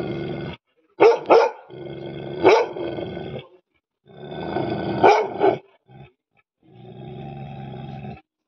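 Bhotia dog (Himalayan sheepdog) growling aggressively in a run of long low rumbles, with sharp barks breaking out of the first three. The last growl, near the end, has no bark.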